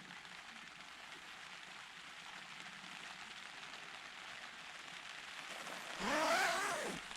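Steady rain falling. About six seconds in, a louder pitched sound lasting about a second rises and then falls in pitch.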